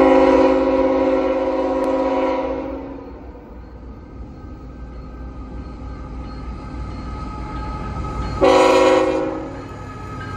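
Diesel locomotive air horn sounding on an approaching freight train, a long multi-note blast of about two and a half seconds, then a short blast near the end, over a low engine rumble.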